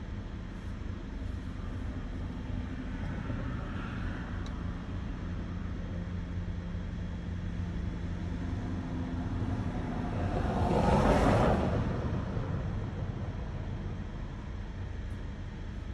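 Steady low hum of a car idling, heard from inside the cabin. A passing vehicle swells up about ten seconds in, is loudest near eleven seconds and fades away.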